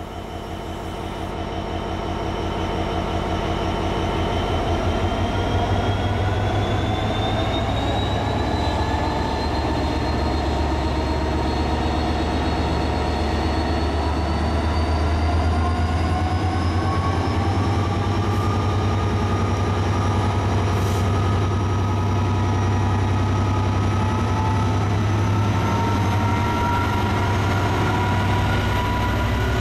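Class 66 diesel locomotive's EMD two-stroke V12 engine running, with a steady deep drone and a whine that slowly climbs in pitch over the first half before levelling off.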